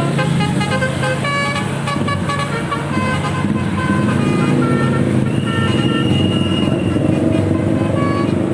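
Basuri telolet bus horn, a set of multi-tone air horns, playing a quick run of short notes like a tune, then holding a longer high note about five seconds in, over the low rumble of the bus engine.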